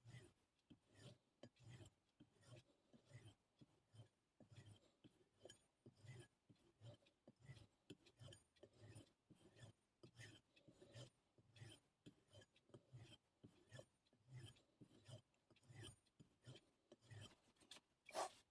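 Faint, steady back-and-forth stropping of a knife blade, a soft rubbing stroke about one and a half to two times a second, to finish the edge after sharpening on a 3000-grit stone.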